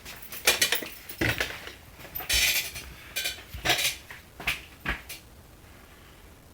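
Metal chainsaw engine parts clinking and clattering as they are handled on a workbench: a run of sharp clinks with a longer rattle about two seconds in, stopping about five seconds in.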